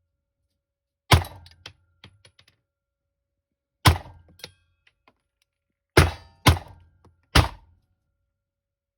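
Glock 17 9mm pistol fired five times at an uneven pace: single shots about a second in and near four seconds, then three shots in quick succession. Small light clicks follow some of the shots.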